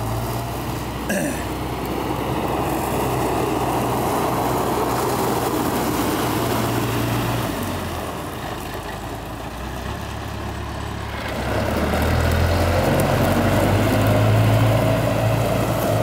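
Diesel engine of a Manitou telescopic handler running as the machine is driven. Its note eases off for a few seconds past the middle, then picks up again and is loudest near the end.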